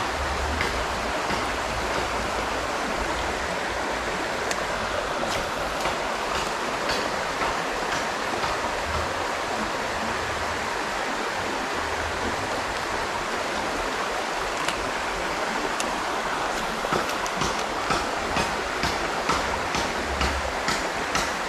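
Shallow rocky river running steadily over stones. In the last few seconds a run of light ticks, about two a second, sounds over it.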